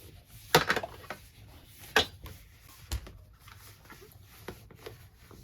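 Handling noise as a hand puppet is worked onto an animatronic figure's hand: a few sharp knocks and rustles, the loudest about half a second in, then single knocks about two and three seconds in.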